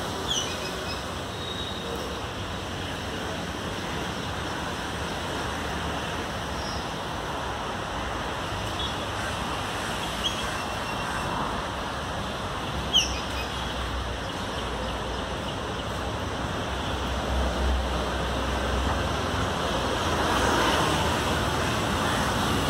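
Steady roar of highway traffic, with a deeper rumble of heavier passing vehicles building in the second half. A few short, high chirps stand out, the sharpest about halfway through.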